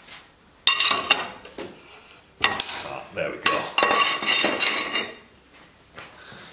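Steel exhaust tube clanking against metal, a few sharp knocks that ring on briefly. Near the end comes the faint hiss of a gas torch being lit.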